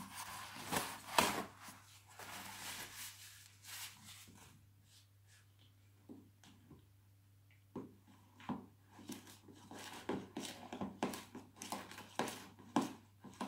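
A spoon stirring and knocking in a plastic mixing bowl, a run of quick clicks and scrapes that comes thicker in the second half, the cream in it runny when it should be firm. Close rustling handling noise in the first second or two.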